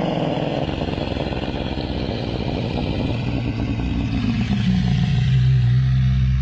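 Torosaurus creature sound effect: a long, rough, low dinosaur call. It slides lower in pitch and from about five seconds in settles into a steady low drone.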